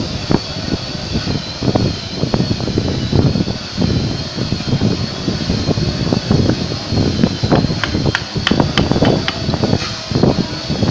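Workshop handling noise: irregular knocks and clicks, most likely wooden workpieces and tools being handled. A quicker run of sharp clicks comes near the end, and a steady high whine runs underneath.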